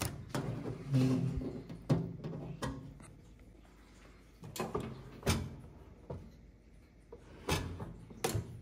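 Clear plastic packing tape peeled off a Cosori countertop air fryer oven, then its hinged glass door handled and pulled open, giving a series of separate knocks and clunks with some rustling.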